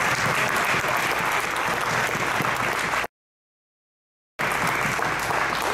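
Audience applauding. About three seconds in, the sound drops out to dead silence for just over a second, then the applause resumes.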